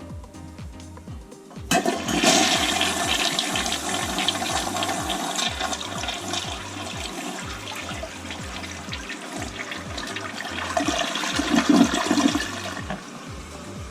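Old Briggs toilet flushing: a sudden rush of water begins about two seconds in, runs for about eleven seconds and eases off near the end. Background music with a steady beat plays underneath.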